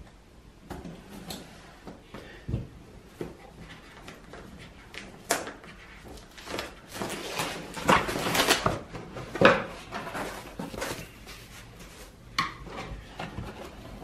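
Plastic shrink wrap crackling and tearing as it is stripped off a cardboard box, with knocks and scrapes of the box being handled and opened on a wooden table. The crackling is loudest about eight to ten seconds in.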